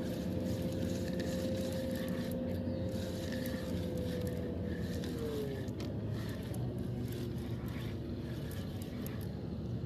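Boat engine running steadily in a low drone, its higher tone sliding down in pitch about halfway through.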